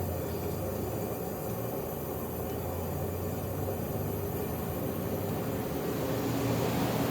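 SoleusAir ductless heat pump outdoor unit winding down after shutdown: a low steady hum with a hiss that grows louder near the end as the unit goes on hissing.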